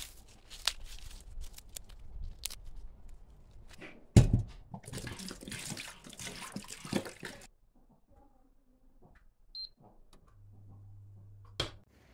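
Light clicks and rustling, then a sharp thump about four seconds in, followed by about three seconds of tap water running into a steel pot of corn cobs. It is much quieter afterwards, with a short low hum near the end.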